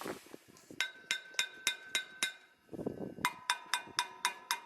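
Metal struck with a series of light, evenly spaced taps, each ringing briefly like a chink; two runs of taps about four a second, the second run with a lower ring.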